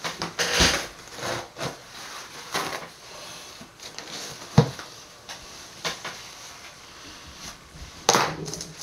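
Bottles and containers being handled on a work table while hair oil is mixed: scattered knocks, clinks and scrapes, with a longer scraping rustle near the start and again near the end, and one sharp knock about halfway through.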